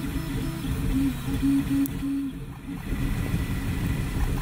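FDM 3D printer printing: its stepper motors whine in short bursts of a few tenths of a second as the print head moves back and forth, over the steady noise of its cooling fans.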